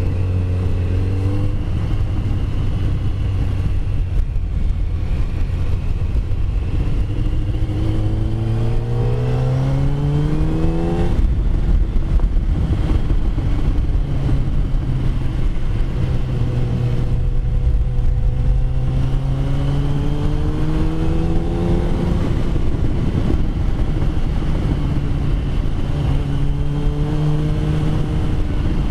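Yamaha FZ1's inline-four engine running at low road speed. Its pitch climbs for a few seconds and drops sharply about eleven seconds in, then holds steady. It climbs again around twenty seconds, and briefly once more near the end.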